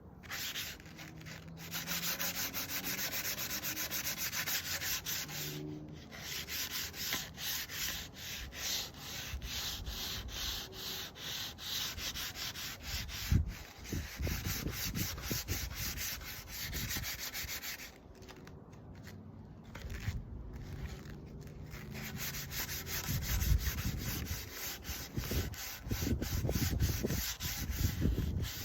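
Wood being sanded by hand with sandpaper: rapid back-and-forth rasping strokes, with brief pauses about six seconds in and again around eighteen to twenty seconds, and a few low bumps in the second half. The sandpaper is worn and getting flimsy.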